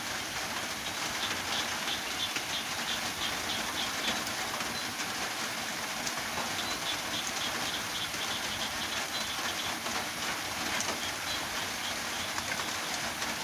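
Steady rain falling, a continuous even hiss. A high, rapid chirping comes through in two short runs, about a second in and again around seven to nine seconds in.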